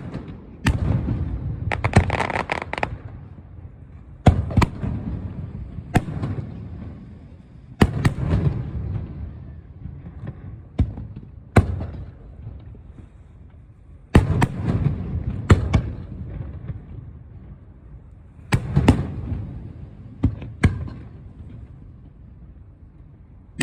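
Aerial fireworks going off: a series of sharp bangs every few seconds, each followed by a low rumbling echo, with a burst of crackling about two seconds in.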